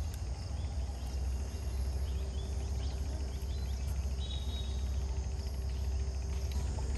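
Rural outdoor ambience: a steady hum of crickets and insects with a few faint bird chirps over a constant low rumble.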